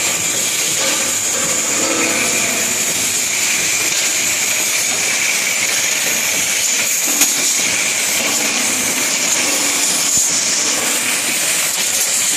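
Plastic bottle-cap folding and cutting machine running: steady mechanical noise with a high hiss, and one sharp click about seven seconds in.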